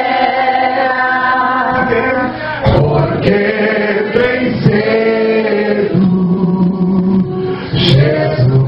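Worship singing with long held notes, a man's voice leading through a microphone.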